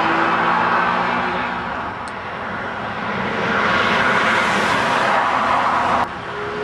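Honda NSX V6 exhaust during roadside fly-bys. One car's engine note fades away over the first second or two, then engine and road noise build again as the next car approaches, and the sound cuts off abruptly about six seconds in.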